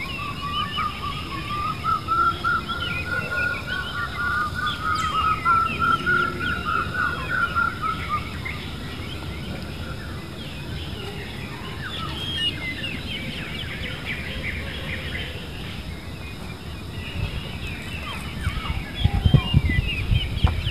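Birds chirping in the background: many short chirps throughout, with a long wavering tone over the first eight seconds. A run of low thumps near the end.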